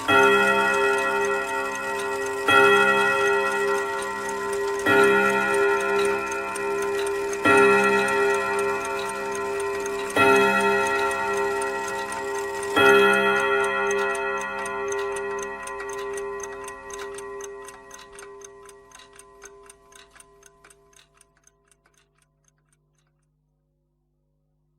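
Wall clock striking the hour on its chime: six struck tones about two and a half seconds apart, each ringing on. The clock ticks underneath, and after the last strike the ring slowly fades away to silence.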